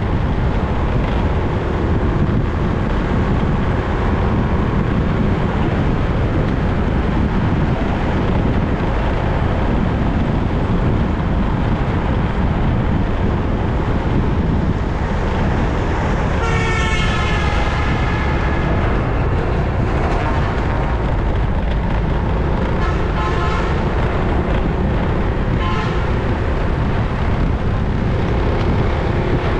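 Steady wind and road rush from a vehicle riding through city streets. About halfway through, a vehicle horn sounds for over a second with its pitch dropping slightly, and a couple of shorter horn beeps follow later.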